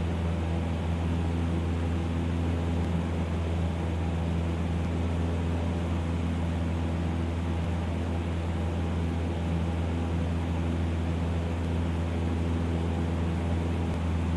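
Single-engine Cessna 150L's four-cylinder Continental O-200 engine and propeller running steadily in flight, a constant low drone heard from inside the cabin.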